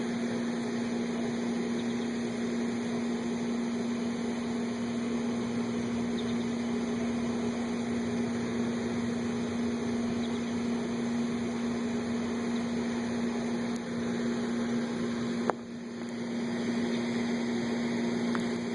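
A steady machine hum with one strong low tone, broken by a single sharp click about fifteen seconds in, after which the hum dips briefly.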